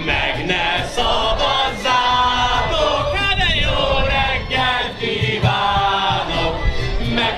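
A male singer on a microphone leading a crowd singing together, with violin accompaniment.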